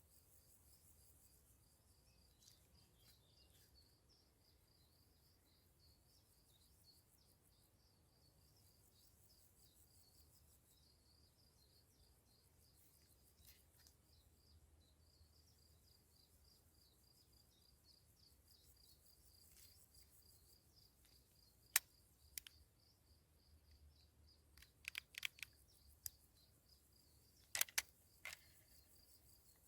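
Near silence, with a faint steady high chirping in the background. Over the last third comes a scattering of sharp clicks, singly and in quick clusters.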